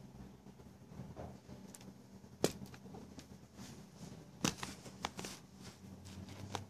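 Several sharp clicks, the loudest about two and a half and four and a half seconds in, with light rustling handling noise over a faint steady low hum.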